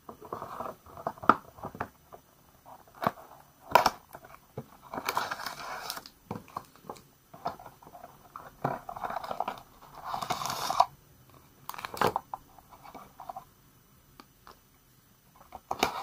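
A cardboard box being opened by hand and plastic-wrapped toothbrushes handled: irregular rustling of paperboard and crinkling plastic wrappers, with several sharp taps and clicks as things are knocked or set down on a wooden table.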